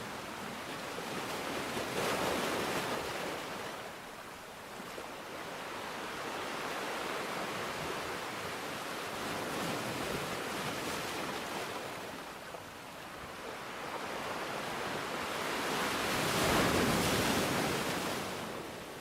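Steady rushing noise of water that swells and ebbs every several seconds, loudest near the end.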